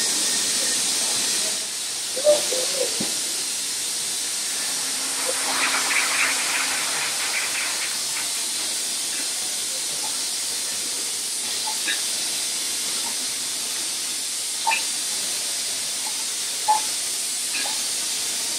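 Bourbon bottling line running, its rotary filling and capping machine giving a steady high hiss. Glass bottles clink now and then, with a run of quick light ticks around six seconds in.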